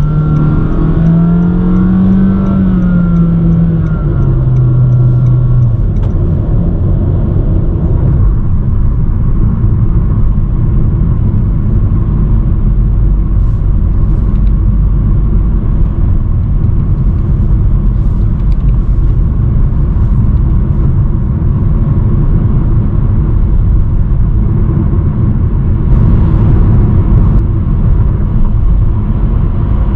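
First-generation Honda Vezel driving at expressway speed: for the first few seconds the engine note rises and then falls as it accelerates, then steady road and tyre noise with a low rumble.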